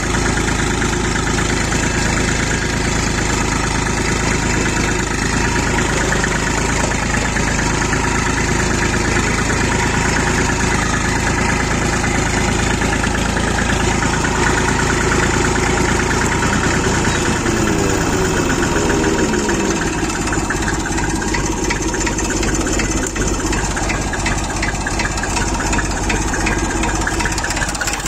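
IMT 533 tractor's three-cylinder diesel engine, freshly rebuilt, running steadily. About 17 seconds in the engine slows, its pitch falling over a couple of seconds, and it settles into a slower idle with distinct firing pulses.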